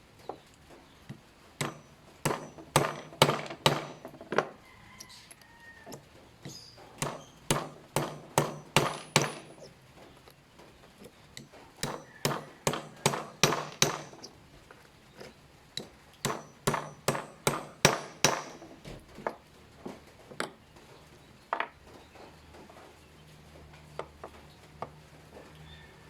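Sharp tapping on a .22 calibre airgun pellet mold: four runs of about eight to ten quick strikes each, with single taps in between.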